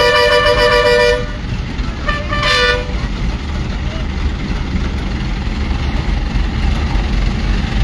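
A vehicle horn sounds twice: a blast of about a second, then a shorter one about two seconds later, each with two notes together. Under it is the steady low rumble of a heavy vehicle's engine running.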